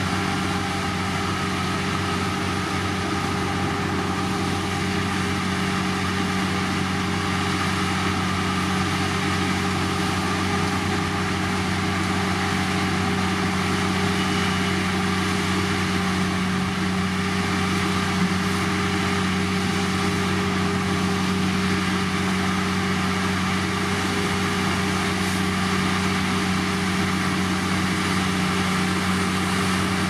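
Diesel engine of heavy road-paving machinery running steadily at a constant speed, a low even hum with no change in pitch.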